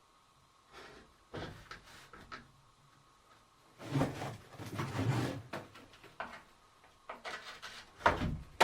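Scattered knocks, clatters and scraping of things being handled, loudest about halfway through and again just before the end, after a moment of silence at the start.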